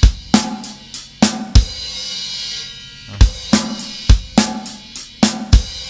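Acoustic drum kit played with sticks: separate strokes of bass drum, snare and hi-hat, stopping for about a second and a half in the middle before the beat picks up again.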